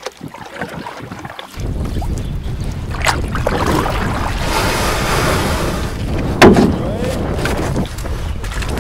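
Wind buffeting the microphone and water rushing along the hull of a canoe moving across choppy water, starting suddenly about a second and a half in. There is a sharp loud knock about six and a half seconds in.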